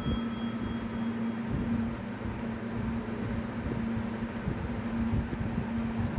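Steady hum of a running vehicle engine on the road, holding one constant low tone over road noise. A brief high chirp comes near the end.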